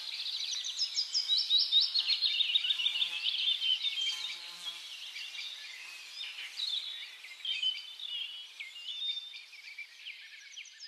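Songbirds chirping and trilling: many quick, high sweeping notes overlapping, busiest and loudest in the first few seconds, then thinning out.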